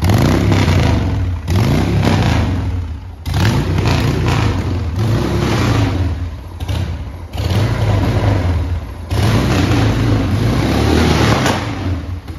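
1986 Harley-Davidson 883 Sportster's air-cooled Evolution V-twin running, its throttle blipped over and over so the engine note rises and falls every second or two.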